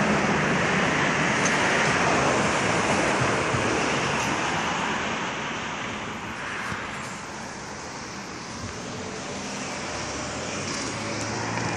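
Airliner flying overhead, its engine noise a steady rush that fades away about halfway through as it moves off. Road traffic noise comes up again near the end.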